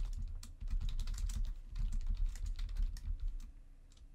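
Rapid typing on a computer keyboard: a fast run of keystrokes that thins out near the end.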